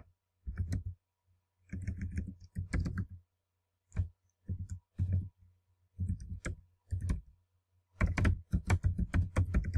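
Typing on a computer keyboard: short groups of key clicks with brief pauses between them, a quicker run of keystrokes near the end.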